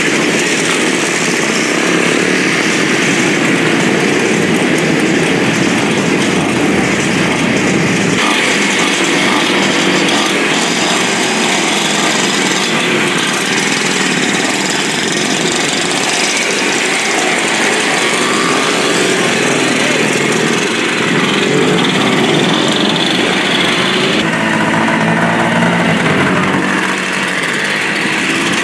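Small engines of vintage scooters and motorcycles running and revving as they ride off one after another. The sound shifts abruptly about eight and twenty-four seconds in.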